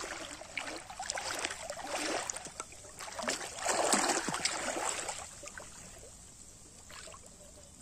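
Water sloshing and splashing as a person wades waist-deep through a pond, in uneven surges that are loudest about four seconds in, then quieter near the end.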